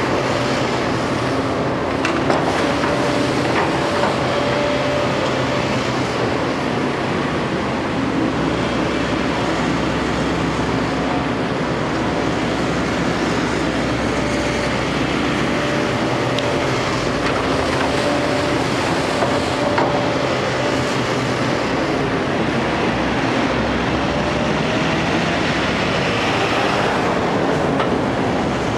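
Diesel engine of a JCB JS220 tracked hydraulic excavator running steadily under load as the machine works, with a hydraulic whine that comes and goes and a few metallic clanks.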